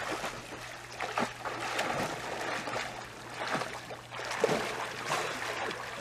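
Water splashing and sloshing in an above-ground pool as people swim through it, with short irregular splashes about once a second over the lapping of the water.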